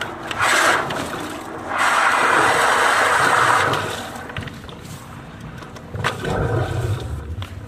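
High-pressure drain jetter blasting water inside a blocked PVC sewer pipe: rushing, gurgling water, loudest for about two seconds in the middle, with a second surge and low rumble near the end.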